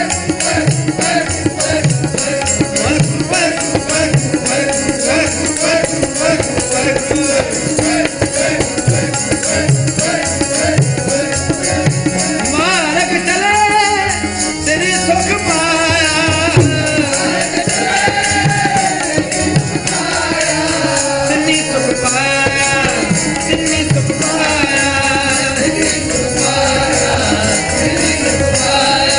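Sikh kirtan: a harmonium playing sustained chords and melody with tabla drumming, and a man's voice singing a shabad over it.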